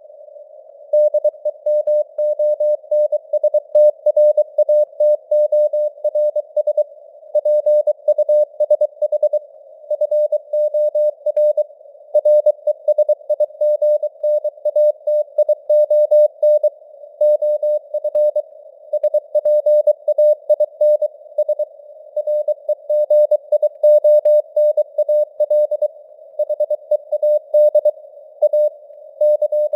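Morse code (CW) at 23 words per minute: a single mid-pitched tone keyed on and off in quick dots and dashes, spelling out news headlines. It sits over a faint hiss of simulated radio noise, and the signal strength fades up and down (QSB).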